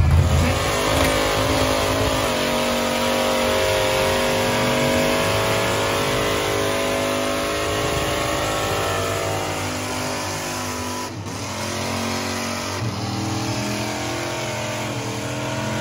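Truck engine held at high revs with a steady drone whose pitch sags slightly, typical of a truck pulling under load in a tug-of-war. About 11 seconds in the note breaks off and picks up again as a slightly lower, steady engine note.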